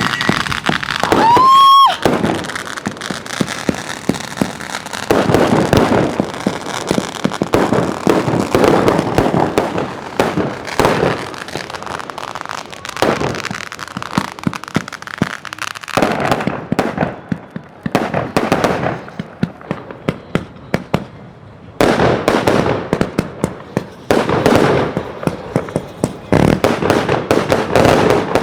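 A 188-shot firework cake firing in a rapid, continuous barrage of launches and bangs with crackle, with a whistle about a second and a half in. The shots come in dense clusters and thin out near the end.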